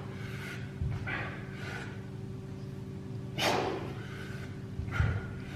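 A man breathing forcefully through dumbbell clean and jerk reps, with a loud exhale about three and a half seconds in.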